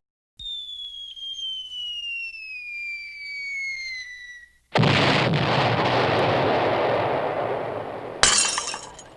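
Soundboard effects: a whistle falling steadily in pitch for about four seconds, then a sudden loud crash that fades over about three seconds, then a brief bright shattering burst near the end.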